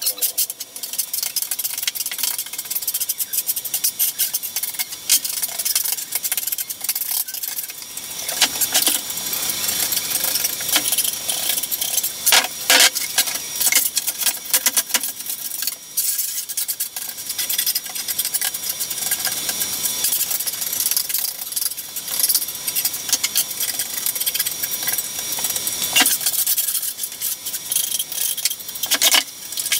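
A hand scraper spreading and scraping a wet, grey cement-like filler paste across a plywood board, in repeated irregular strokes with scattered clicks and taps.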